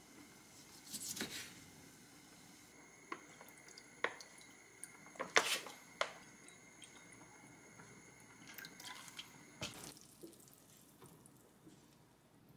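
Kitchen food-prep handling sounds: a knife cutting through a tomato on a wooden cutting board, then scattered light clicks and knocks, the loudest a short cluster about five to six seconds in.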